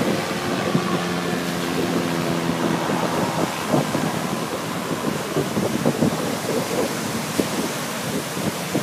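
Pacific Ocean surf washing ashore, with wind buffeting the microphone in gusts. A steady low hum of several tones sounds under it for the first three seconds or so, then fades.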